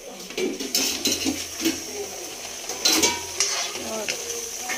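A spoon stirring grated carrots simmering in milk in a steel kadhai, scraping and clinking against the pan with a few sharper knocks, over a low frying sizzle.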